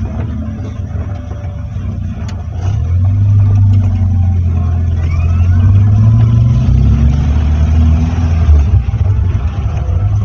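Vehicle engine running while driving, getting louder about three seconds in and rising gently in pitch as it accelerates, then easing off near the end.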